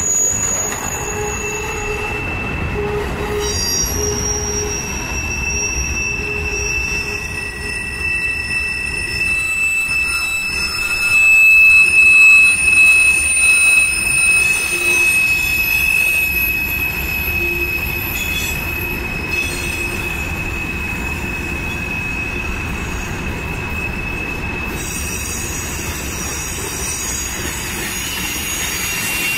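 Freight train cars rolling past, their steel wheels squealing against the rails over a steady rumble. The squeal is several long, high, steady tones, loudest about twelve seconds in.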